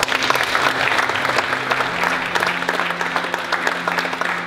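Seated audience of young people applauding together, a long round of clapping.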